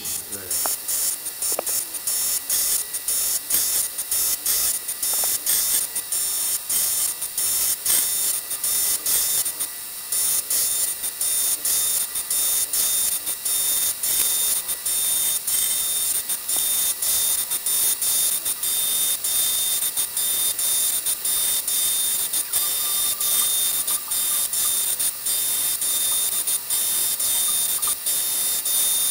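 End mill in a milling machine cutting an aluminium block on a rotary table: a steady high-pitched cutting noise with a rapid run of ticks as chips fly off.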